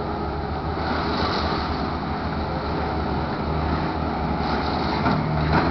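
Diesel engines of a tracked excavator and a skid-steer loader running steadily as they work, slightly louder near the end.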